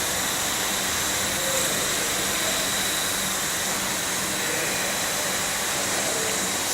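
Linear welding special-purpose machine running: a steady hissing noise with a low electrical hum underneath, holding even throughout.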